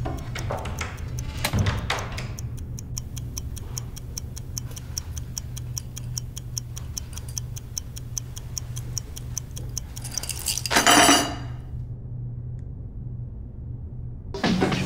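Clock ticking rapidly and evenly over a low steady hum. About eleven seconds in, a loud brief burst of sound cuts across it. After that the ticking stops and only the hum remains.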